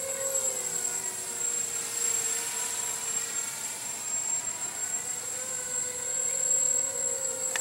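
Eachine Assassin 180 racing quadcopter in flight: its four motors and propellers make a steady buzzing whine. The pitch dips slightly early on and climbs back up later.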